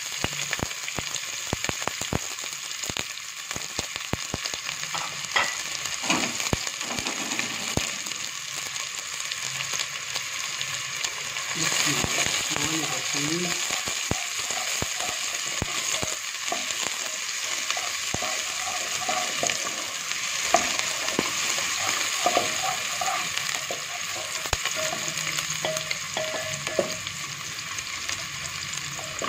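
Sliced onions sizzling in hot ghee in a metal pot. A wooden spoon stirs them, with frequent small clicks and scrapes against the pot.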